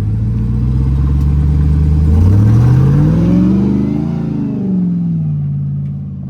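Full-size pickup truck engine revving on an off-road climb. It runs steady at first, rises in pitch about two seconds in and eases back down after about four seconds.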